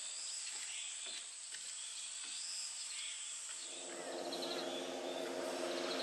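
Faint outdoor ambience of insects and short bird chirps in pine woods. A steady, low hum of several tones joins about halfway through.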